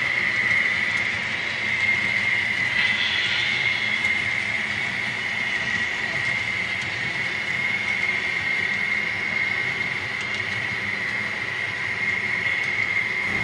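Model freight train of autorack cars rolling along the track, a steady rumble with a high whine.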